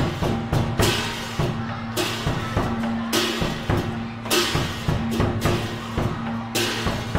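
Thai ensemble music of bamboo angklung, held notes shaken in a rattling tremolo, over drum beats. A bright hit comes about once a second.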